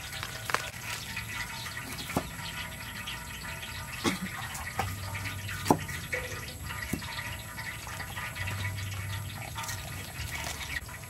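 A cleaver chopping limes in half on a thick wooden chopping block: scattered sharp knocks as the blade strikes the board, over a steady rustling, hissing background.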